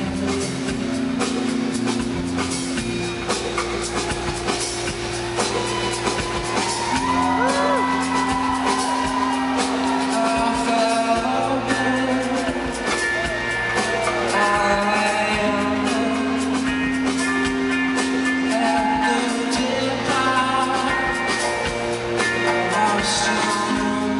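Live rock band playing: a sung lead vocal over held bass notes, drums and electric guitars.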